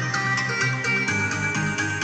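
Electronic dance music playing through loudspeakers from a home-built audio processor and power amplifier, channels A and B mixed together, with a steady beat and full bass and treble.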